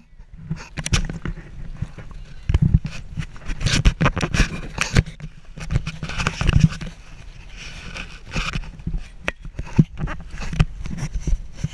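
Close handling noise on a GoPro as a squirrel monkey grabs and clambers on it: irregular knocks, taps and scraping of hands and claws on the camera housing.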